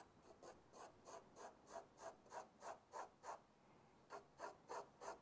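Graphite pencil scratching across drawing paper in quick back-and-forth hatching strokes, faint and regular at about three strokes a second, with a short pause a little past halfway. The strokes lay dense shading lines to darken the shadow side of a drawn cube.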